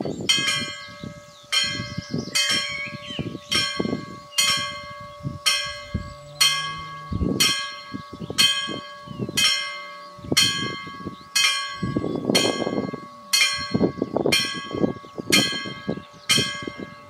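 Danish level-crossing warning bell striking steadily, about one and a half strikes a second, each strike ringing on with a bright metallic tone over a faint steady hum. It is the crossing's warning that a train is approaching.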